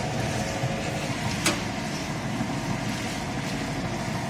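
Stone grinding mill running, its electric motor turning the millstone through a set of V-belts: a steady mechanical running noise, with one sharp click about a second and a half in.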